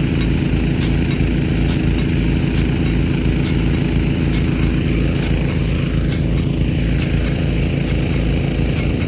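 Gasoline-engine water pump running steadily at working speed, feeding a Nelson P150 big-gun sprinkler, with a spray hiss over it and faint light ticks about once every second.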